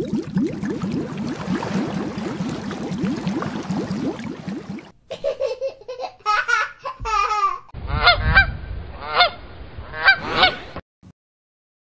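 A rushing, splashing water effect for about five seconds, then a white domestic goose honking in a run of about seven loud calls that stop near the end.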